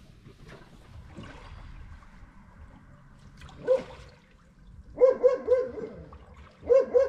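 A dog barking: one bark, then a quick run of four barks about five seconds in and another run of three near the end.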